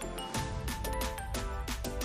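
Background music with a steady beat and held notes; a deep bass line comes in about a third of a second in.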